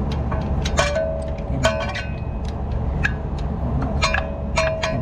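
Repeated sharp clicks and clinks of hand tools and parts, with a couple of short squeaky tones, over a steady low rumble.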